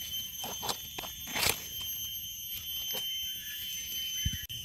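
Steady, high-pitched chorus of night insects, several even tones held without a break, with a few short rustles and clicks from leaf litter, the loudest about one and a half seconds in.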